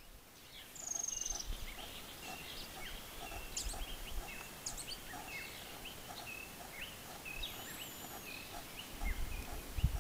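Wild birds calling: many short rising chirps and whistles with a brief high trill about a second in, over a low note repeated about twice a second. A low rumbling comes in near the end.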